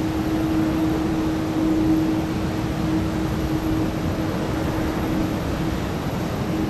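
Airbus A330-300 jet engines at taxi idle: a steady rumble with a constant low hum.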